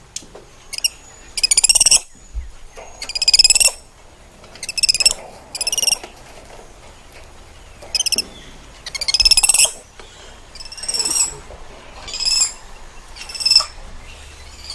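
Spider monkey giving a series of high, shrill, trilled calls, each up to about half a second long, repeated every second or two.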